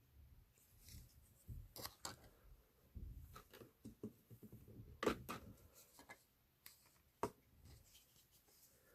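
Faint, scattered clicks and taps of small parts and tools being handled on a workbench, with the sharpest click about five seconds in and another about seven seconds in.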